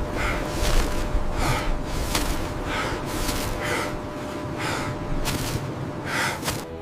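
A person breathing hard, quick heavy breaths repeating about every three-quarters of a second, with a low rumble underneath.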